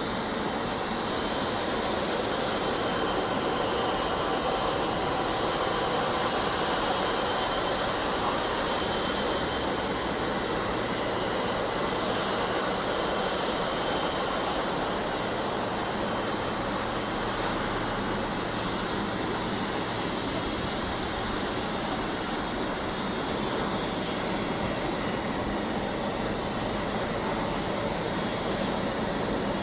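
Jet airliner engines running steadily, a constant rushing noise with a faint high whine over it.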